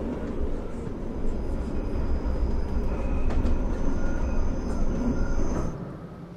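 A steady low rumble, like a moving vehicle, with faint thin high whines over it. It fades away near the end.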